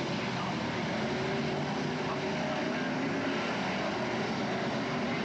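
BriscA F1 stock cars' V8 engines running around the oval, heard as a steady blended engine drone with no single car or impact standing out.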